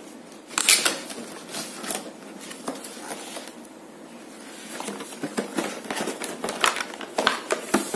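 Unboxing handling noise: a cardboard microphone box being slid out of its sleeve and opened, and the plastic-wrapped microphone inside handled, in irregular rustles, scrapes and clicks. Quieter about three to four seconds in, busier near the end.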